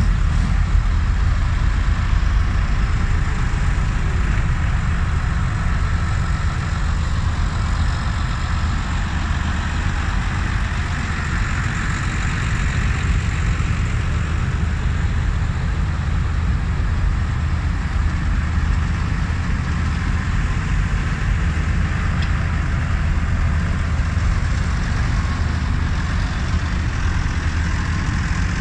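A procession of farm tractors' diesel engines running steadily as they drive slowly past in a line, a continuous low rumble.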